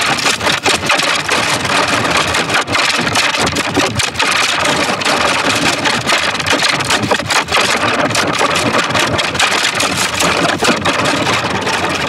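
Heavily distorted, effects-processed music turned into a loud, harsh buzzing noise full of rapid crackles, with no clear tune.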